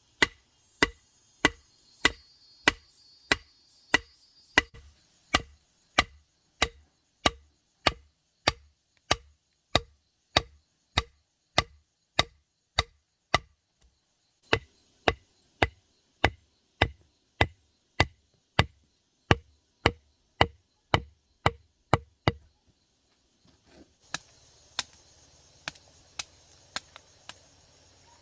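Steady, rhythmic chopping with a blade, about one and a half sharp strokes a second. The strokes pause briefly near the end, then a few lighter strokes follow over a steady background hiss.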